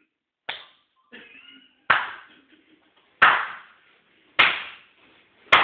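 Sharp hand slaps, five in a row about a second and a quarter apart, each ringing briefly in a small room; the first is fainter.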